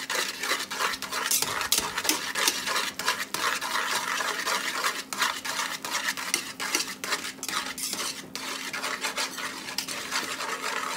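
Wire whisk beating buttermilk into mashed potatoes in a large metal pot: rapid, continuous scraping and clicking of the wires against the pot's sides and bottom.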